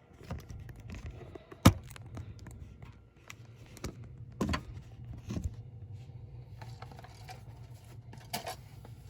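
A few sharp knocks and clunks of handling, the loudest about one and a half seconds in, over a low steady hum.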